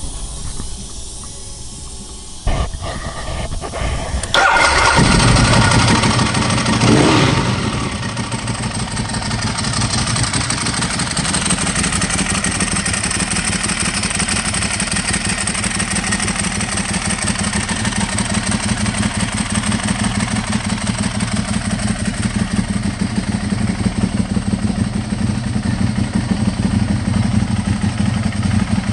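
Ducati 1098's L-twin engine cranked by the starter, catching a little after four seconds in and revved once, then settling into a steady idle.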